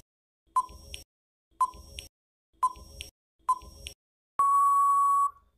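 Countdown-timer sound effect: four short electronic beeps about a second apart, then one long beep of about a second near the end, marking that time is up.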